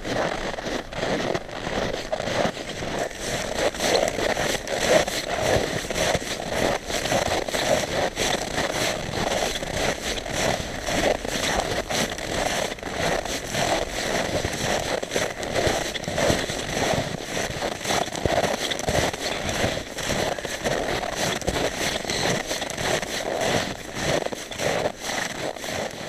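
Boots crunching on packed snow as two people walk, a continuous dense crackle of overlapping steps.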